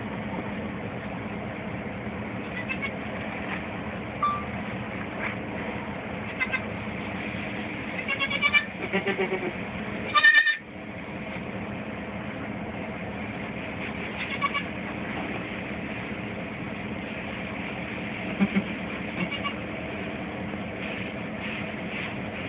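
Goats bleating, a Boer goat doe with her newborn kid: a few short calls, the loudest about ten seconds in, over a steady low background hum.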